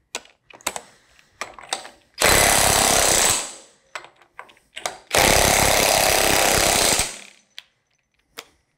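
Cordless impact wrench hammering loose the rotor nuts on a rotary lobe pump, acorn nuts torqued to 250 foot-pounds: two bursts of impacting, the first about a second long and the second nearly two seconds and trailing off. Light clicks and knocks of the socket being fitted onto the nuts come between and around them.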